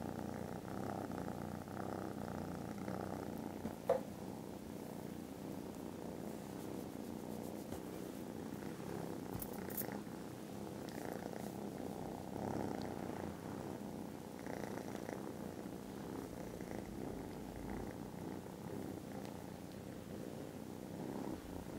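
Kitten purring loudly and steadily while being stroked. A single brief click sounds about four seconds in.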